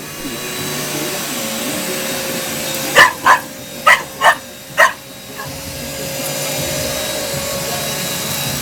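Vacuum cleaner motor spinning up and running steadily, with a pit bull barking at it five times in quick succession about three to five seconds in.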